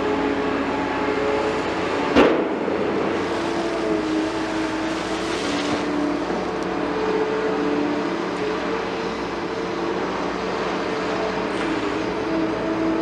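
Hydraulic excavator's diesel engine running steadily under working load, its note shifting up and down a little. A single sharp knock about two seconds in.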